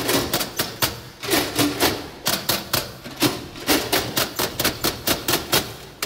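Metal cantilever toolboxes played as percussion by hand: rapid, rhythmic clicks and knocks as the performers strike the boxes and work their lids, with no music underneath.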